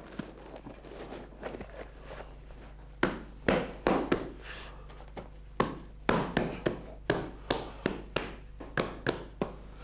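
Dull wooden knocks as a board is beaten down onto a paper-wrapped block of marzipan packed in a wooden frame, compacting it. The thuds start about three seconds in and come about twice a second toward the end.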